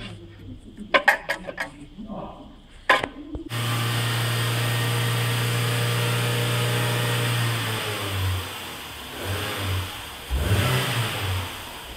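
Several sharp metallic knocks as a clutch pressure plate on a dual-mass flywheel is rocked by hand. Then a loud, steady machine hum with hiss starts suddenly and later comes in uneven surges.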